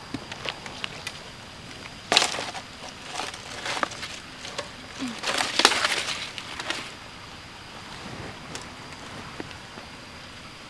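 Knocks and clatters of a plastic basket being lifted and set down on a platform of wooden slats, with one sharp knock about two seconds in and a dense run of clattering from about five to seven seconds in. A faint steady high tone sits underneath.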